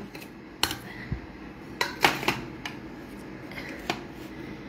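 Stainless steel food container being handled and tilted: about six light metal clinks and knocks, several of them close together around the middle.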